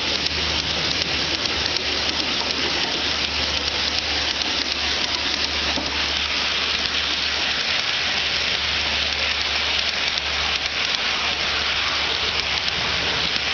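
G-scale model freight train of hopper and tank cars rolling past close by: a steady, dense hiss-like clatter of metal wheels on the rails, over a steady low hum.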